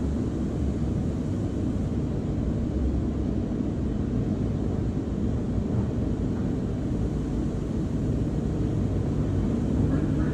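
Automatic tunnel car wash machinery running, a steady low rumble heard muffled from inside the car's cabin.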